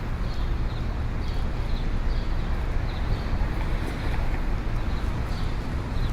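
Busy city street ambience: a steady low traffic rumble and hum, with faint short high ticks repeating about twice a second.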